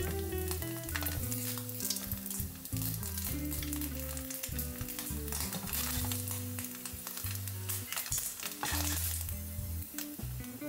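Food frying in a pan, a steady sizzle with many small crackles, over background music.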